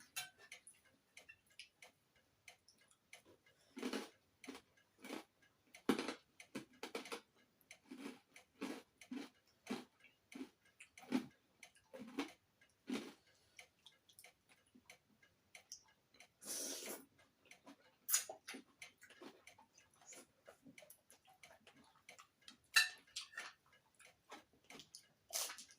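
Irregular close-up eating sounds: mouth smacks and clicks of chewing food, with occasional light taps, and one longer noisy crunch or rustle about halfway through.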